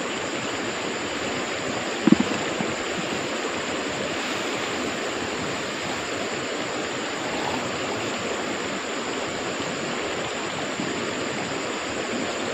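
Steady rush of flowing stream water, with one short knock about two seconds in.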